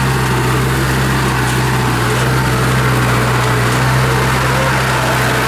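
Diesel engine of a modified Kubota DC70 rice combine harvester running at a steady speed, an even drone that holds one pitch throughout.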